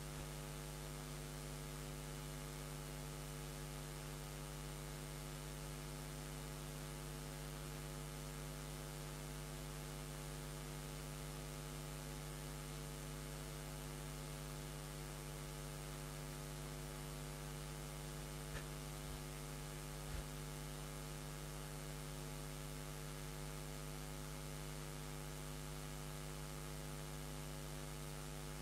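Steady electrical mains hum with a faint hiss, unchanging throughout, with two faint clicks about two-thirds of the way through.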